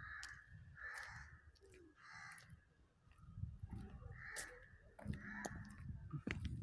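Crows cawing outdoors, about five caws spaced a second or two apart, over a low rumble on the microphone.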